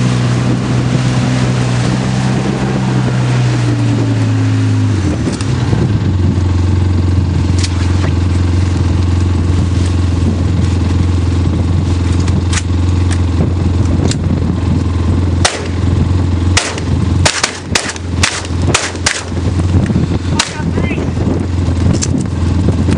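A vehicle engine running steadily; its note drops about five seconds in and then holds at idle. Shotgun shots crack over it, a few scattered at first, then a rapid string of about ten between about 15 and 20 seconds in.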